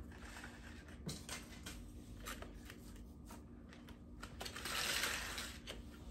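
Soft handling sounds of plant tags being pushed into potting soil in clear plastic cups, with light clicks of the cups and tags, and a louder scratchy rustle near the end.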